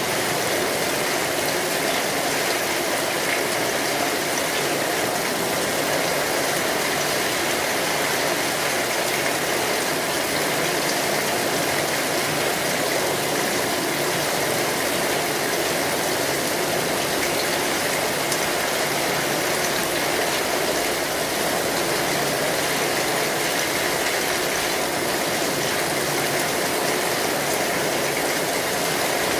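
Steady rain falling on an umbrella canopy: a dense, even hiss of drops that keeps up without a break.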